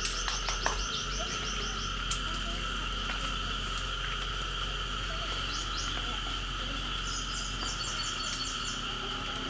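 Steady outdoor chorus of calling animals, heard as two unbroken high hums. A run of rapid chirps sounds at the start and another near the end, with a few sharp clicks in the first two seconds.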